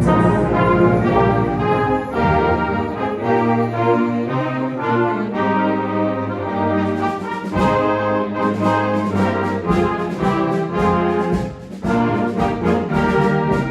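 Concert band playing a medley of holiday music and traditional carols, with the brass section carrying the melody.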